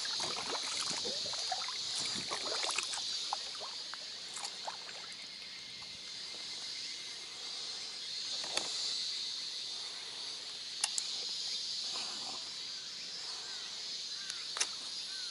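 Paddle strokes splashing the water beside a small inflatable packraft in the first few seconds, over a steady high-pitched chorus of higurashi cicadas. Later come a few light clicks and a knock as fishing rods are handled in the boat.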